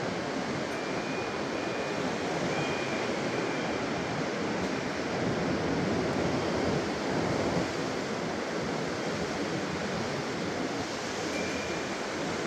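Strong wind blowing steadily before a thunderstorm, a dense, even rushing noise.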